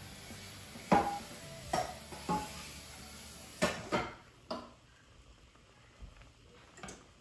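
A metal utensil clanking against a metal cooking pot during stirring of a stew: about seven sharp, irregular knocks with a short ring. The loudest comes about a second in, and the knocks grow fainter after about four and a half seconds.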